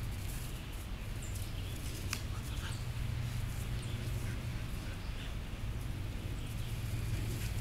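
Outdoor backyard ambience: a steady low hum with scattered faint bird chirps, and one sharp click about two seconds in.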